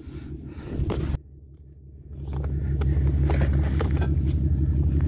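The sound cuts off abruptly about a second in. About two seconds in, a steady low rumble comes up and holds.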